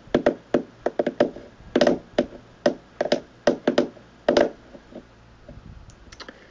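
A run of sharp, irregular knocks and taps close to the microphone, about three a second, thinning to a few faint ones after about four and a half seconds.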